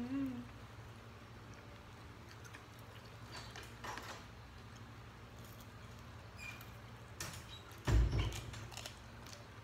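Quiet eating sounds at a table: faint clicks of fingers and food on plates over a steady low hum, with one dull thump about eight seconds in.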